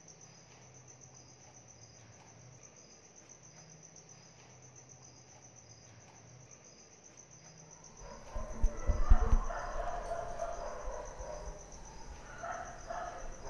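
Crickets chirping steadily at a low level, as night ambience. About eight seconds in, a louder, mixed sound with low thumps comes in over them.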